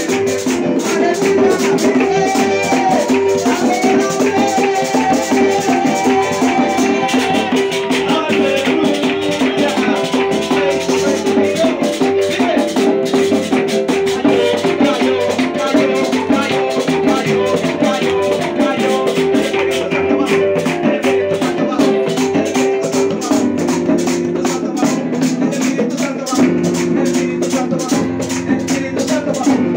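Live worship music through a PA: an electronic keyboard over a fast rattling percussion beat, a man singing into a microphone, and hand clapping.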